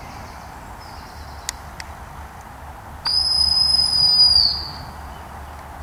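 A sheepdog handler's whistle gives one long, steady, high blast about three seconds in. It lasts about a second and a half and dips slightly in pitch at the end: a command to the working dog.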